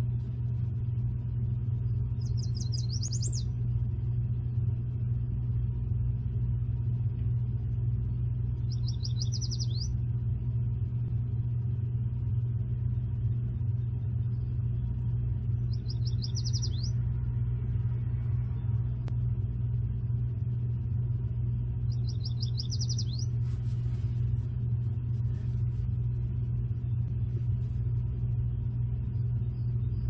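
A songbird sings a short, fast, high trill four times, about every six to seven seconds, over a steady low rumble.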